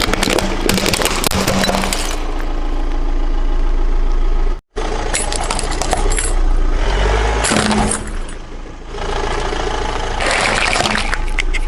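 A car's tyre rolling over and crushing crunchy objects, with bursts of cracking and snapping over the low hum of the car's running engine. The crunching comes in three stretches, with an abrupt cut about a third of the way in.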